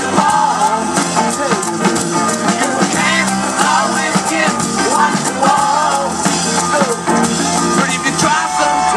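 Rock music: a band playing, with guitar and drums.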